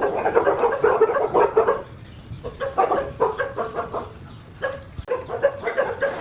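Laying hens clucking: rapid runs of short clucks from several birds, in bunches with brief lulls.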